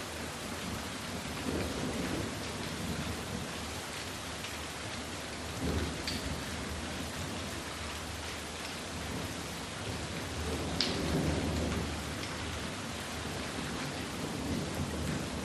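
Rain falling on a calm lake surface: a steady patter and hiss of drops, with a few brief low swells, about two, six and eleven seconds in.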